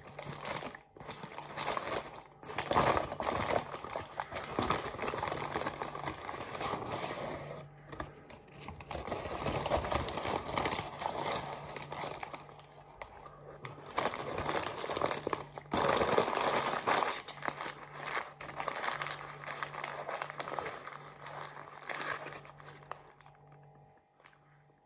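White paper burger wrapper being unwrapped and crinkled by hand, in bursts with short pauses, quietening near the end. A faint low steady hum runs underneath.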